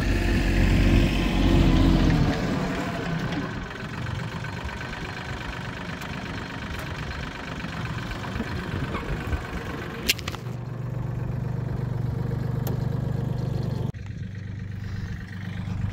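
Mahindra compact tractor's diesel engine running steadily while grading dirt, with wind buffeting the microphone, loudest in the first couple of seconds.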